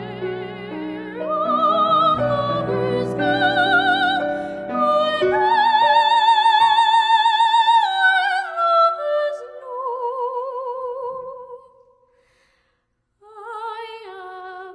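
Classically trained soprano singing with vibrato over grand piano chords. The line climbs to a long high held note of about two seconds, then steps down and fades. After a short pause about twelve seconds in, the voice comes back in more softly.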